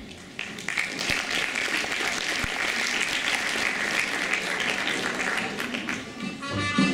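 Audience applauding, dense clapping that eases off near the end, when music with brass instruments starts.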